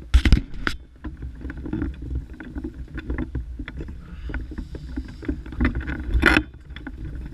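Rustling and scattered knocks of a person moving about and handling gear inside a fabric ice-fishing shelter, over a low rumble, with a louder knock near the start and another about six seconds in.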